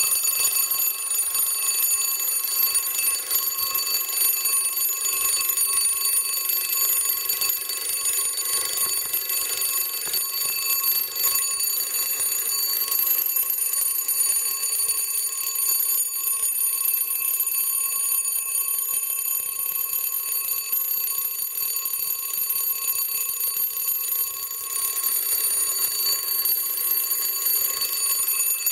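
Restored 1912 electric doorbell, run on 8 volts AC, ringing continuously on its small round brass gong: a steady, unbroken metallic ring.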